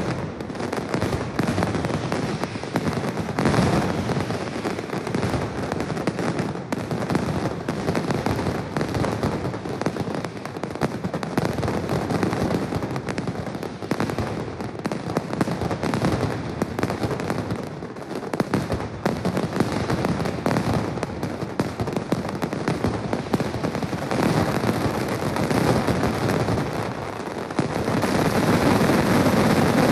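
Mascletà firecrackers going off in rapid, unbroken strings of loud bangs. In the last couple of seconds the bangs merge into a denser, louder barrage.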